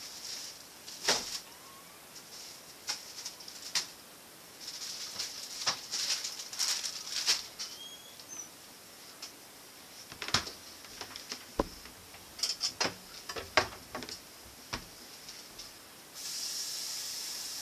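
Groceries being handled at an open refrigerator: plastic bags crinkling and rustling, with scattered clicks and knocks as items are taken out and set down. A steady hiss starts near the end.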